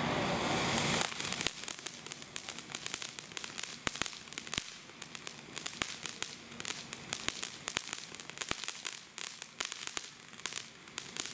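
Black Cat Superior Star Fish firework fountain: its steady gushing hiss cuts off about a second in and gives way to crackling, a dense run of irregular sharp pops.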